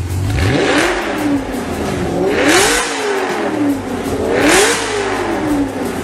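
Audi RS5's 4.2-litre V8 breathing through an ARMYTRIX cat-back exhaust, free-revved three times at standstill: each rev climbs quickly and falls back more slowly towards idle.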